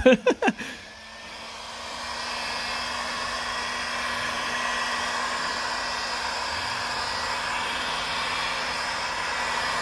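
Handheld electric heat gun blowing hot air steadily, rising to full strength over the first couple of seconds and then holding level with a faint hum from its motor.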